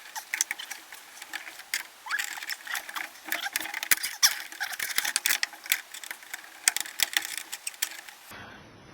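Rapid, irregular clicking, tapping and scraping of small metal and plastic parts being handled, as in working door lock rods and clips inside a door, with a faint steady hum. The sound is thin, with no low end, and starts and stops abruptly.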